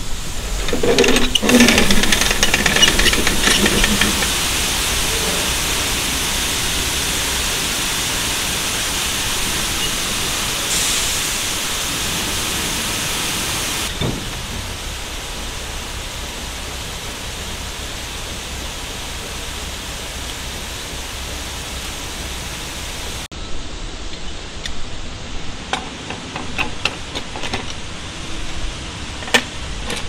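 Wheat pouring from a semi grain trailer's hopper gate through the steel grate into an elevator pit: a steady hiss, opened by clanks and rattles as the gate is cranked open. The hiss drops a step about 14 seconds in, and scattered clanks come near the end.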